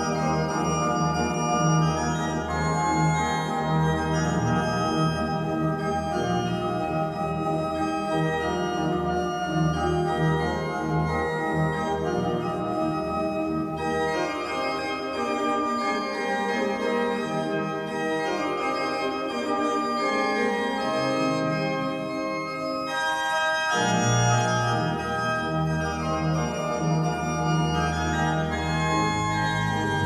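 Pipe organ playing sustained full chords over a deep bass line. About halfway through the bass drops out for a lighter passage with a line stepping downward, and the full sound with deep bass returns near the end.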